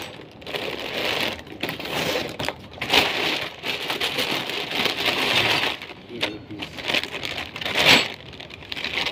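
Plastic packaging crinkling and rustling in irregular bursts as a bag is torn open and a safety harness is unpacked from its plastic wrapper. The sharpest crackles come about three seconds in and again near the end.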